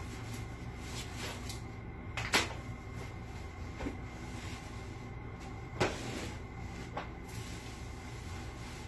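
Handling noise from a small rug being unrolled and laid on a concrete floor: two sharp knocks, about two and a half and six seconds in, with a couple of softer ones between, over a low steady hum.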